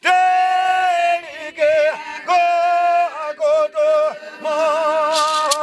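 A solo voice singing a chant in long held notes with a wavering pitch, each phrase ending in a downward slide. A rattle starts shaking about five seconds in.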